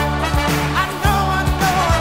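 Upbeat music with a steady drum beat and a melody line over it.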